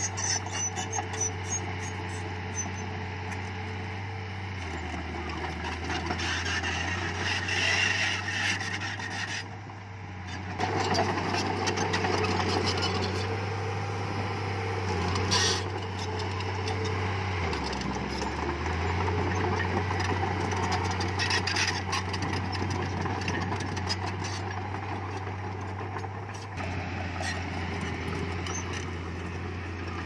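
Diesel engine of a heavy earthmoving machine working under varying load. Its low drone steps up and down in pitch several times, with rattling and scraping over it.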